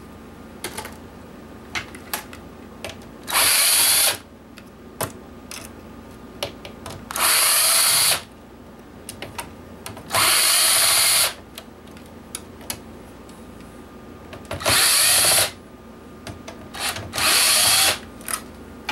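Power drill-driver backing out screws that hold a PlayStation 3's power supply: five short runs of about a second each, with small clicks and taps of handling between them.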